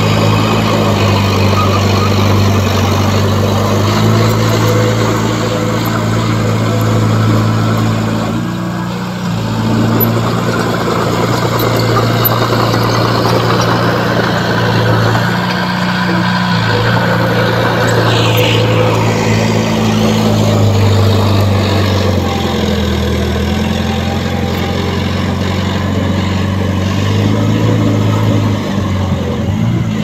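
Small crawler bulldozer's diesel engine running under load, its pitch stepping up and down every few seconds as it pushes dirt. A brief higher whine rises and falls about eighteen seconds in.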